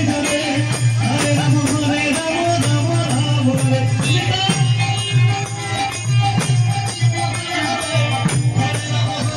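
Live Bengali nam kirtan music with a steady beat: a khol drum beats under jingling kartal hand cymbals, with a harmonium playing held notes.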